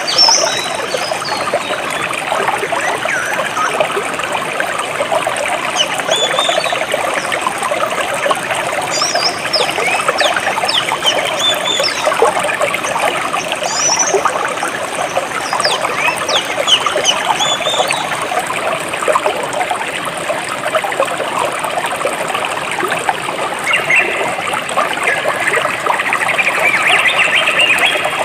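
Shallow jungle stream trickling and babbling steadily over rocks, with small birds chirping now and then above the water.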